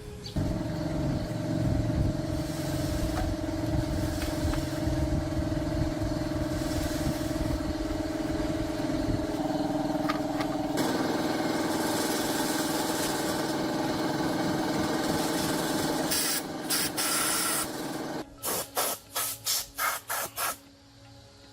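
A small petrol engine runs steadily at a constant speed, and its pitch shifts once partway through. Near the end it breaks into a quick run of short on-off bursts, about three a second, then stops.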